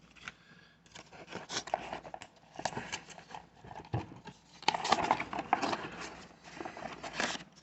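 Baseball trading cards being handled and flipped through by hand: an irregular series of light clicks and papery rustles.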